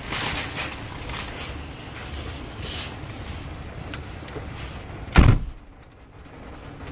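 Handling and rustling noises, then a van door slammed shut about five seconds in, the loudest sound; after the slam the outside noise is muffled.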